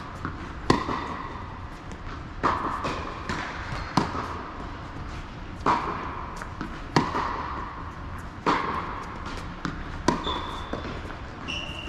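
Tennis rally on an indoor hard court: a ball struck by racket strings and bouncing on the court, seven sharp pops about every one and a half seconds, each ringing on in the hall. Two short high squeaks near the end.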